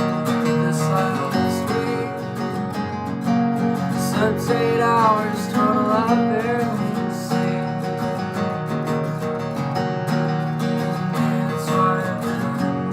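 Acoustic guitar strummed steadily in chords: the instrumental intro of an unplugged song.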